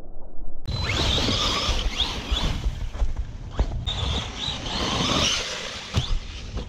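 Arrma Big Rock Crew Cab 3S BLX, a brushless electric RC truck, driving over dirt and snow: a high motor whine rising and falling with the throttle over tyre rumble, with a couple of sharp knocks about three and a half and six seconds in.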